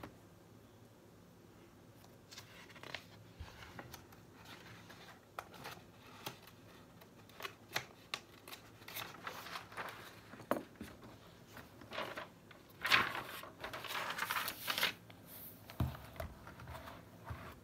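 Notebook pages being turned and handled: paper rustling and flapping in short bursts with light taps. It is loudest about three-quarters of the way through.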